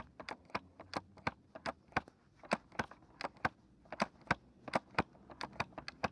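Fingers tapping and clicking on the receiver and bolt handle of an airsoft sniper rifle: a quick, uneven run of sharp clicks, about four a second.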